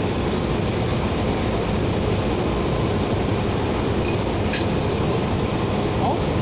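Steady rumbling noise of a ship at sea, its engines droning under wind on the microphone. A couple of faint clinks sound about four seconds in.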